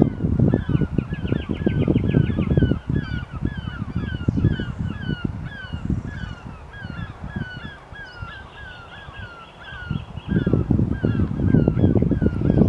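A flock of geese honking, several calls a second without a break. Under it a loud low rumble eases off in the middle and comes back strongly near the end.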